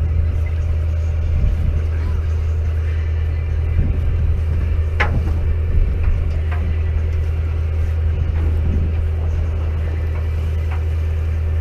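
Steady low hum of a fishing boat's engine running, with a sharp knock about five seconds in and some faint voices.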